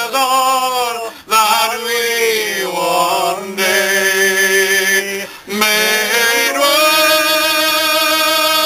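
A man singing unaccompanied, drawing out the final line of a hymn-like song in long held notes, with two short breaths between them; the last note is long and steady.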